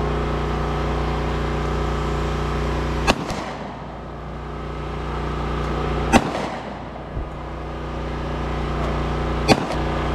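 Three single shots from a Glock 29 10mm pistol, fired during warm-up and sighting-in, spaced about three seconds apart. A steady engine hum runs underneath and dips briefly after each shot.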